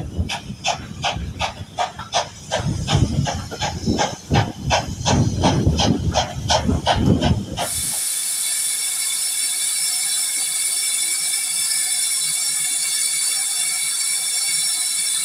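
A steam train running, with regular beats about three a second over a low rumble, heard from a carriage. After about eight seconds this gives way abruptly to a steady, loud hiss of steam from a standing steam locomotive.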